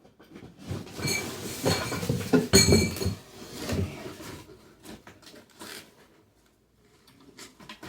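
Packaging being handled while parts are pulled out of a large cardboard box: rustling and scraping with a few knocks, loudest over the first few seconds, then fainter and dying down.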